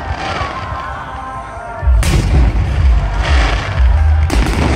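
Display fireworks exploding overhead. A sharp bang about two seconds in is followed by deep, continuing booms, and another burst comes near the end.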